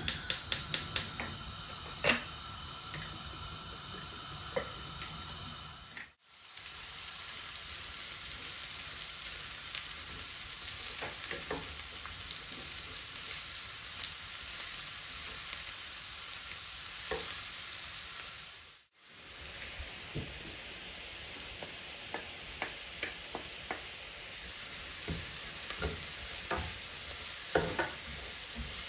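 Chopped onions frying in oil in a nonstick frying pan, with a steady sizzle, while a wooden spatula stirs them, scraping and ticking against the pan. It opens with a quick run of sharp crackles, and the sound drops out briefly twice.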